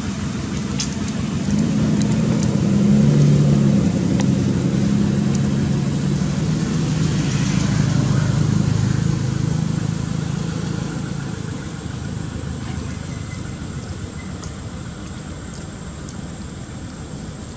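A passing engine hum that swells over the first few seconds and then slowly fades away, with a few faint clicks.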